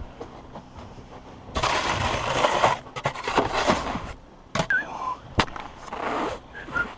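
Snow shovel scraping and pushing packed snow on a roof in several noisy strokes, with a couple of sharp knocks of the shovel in between.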